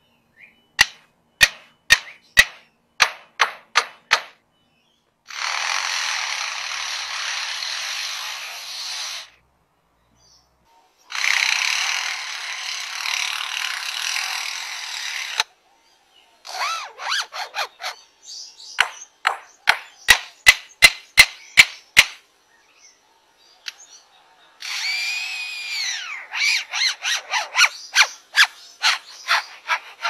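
Lyrebird mimicking man-made sounds: a run of sharp clicks, then two stretches of harsh buzzing like a power tool, more rapid clicks, and near the end buzzing whose pitch rises and falls.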